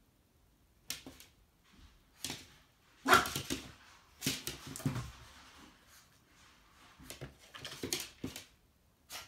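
Lhasa Apso puppy barking at its own reflection in a mirror: short, separate barks, the loudest a few seconds in, with a lull before a quicker cluster near the end.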